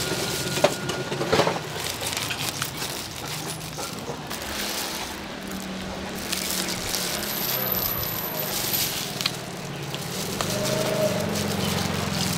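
Street-stall background of faint voices, with a few sharp clinks and knocks in the first second and a half.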